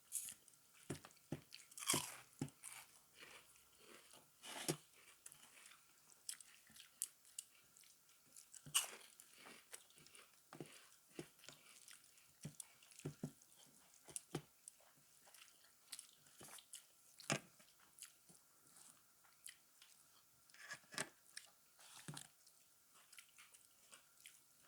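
A person eating close to the microphone: irregular crunches, bites and small mouth clicks while chewing a meal.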